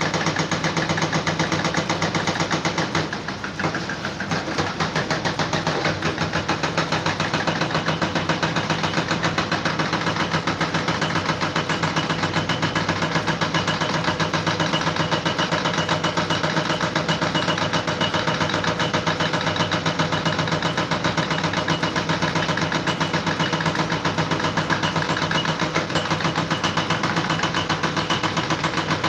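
An engine running steadily with a rapid, even pulsing beat, dipping briefly about three seconds in.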